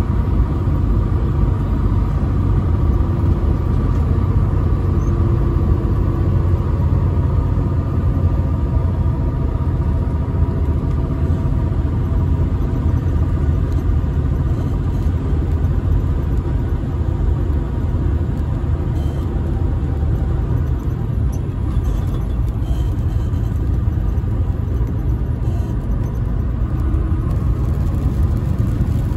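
Semi truck's diesel engine and tyres at steady highway speed, heard from inside the cab: a constant low rumble with a faint steady whine over it.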